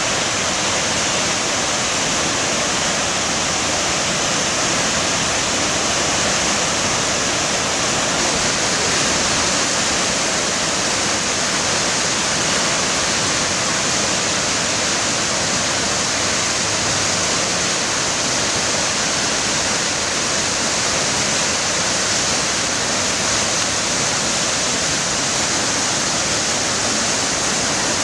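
Floodwater rushing steadily through rapids in a normally dry desert river that is running high after heavy rain.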